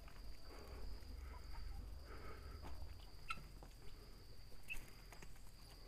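A steady high insect drone, with faint scuffs and clicks and a couple of short, faint chirps about three and four and a half seconds in.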